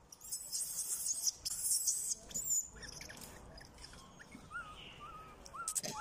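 Animal sounds: high, dense chirping for the first couple of seconds, then a run of short, repeated hooked calls, about three a second, from about four and a half seconds in, with a sharp louder burst near the end.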